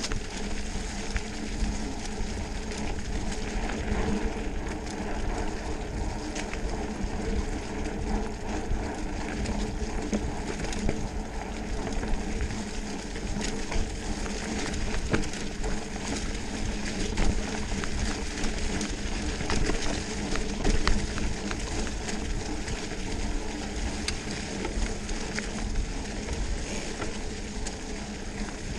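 Mountain bike rolling fast over a leaf-strewn dirt trail: a steady rush of tyres on leaves and ground, with frequent clicks and rattles from the bike over bumps.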